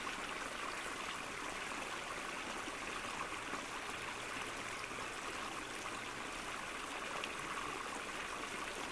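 Small woodland brook running steadily, water rushing and splashing over stones and fallen twigs.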